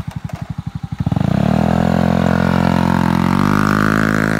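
A 2006 Honda Ruckus scooter's 49 cc four-stroke single, with a loud exhaust, putters at idle in even pulses. About a second in it revs up as the scooter pulls away, and its pitch climbs in two steps as it gathers speed.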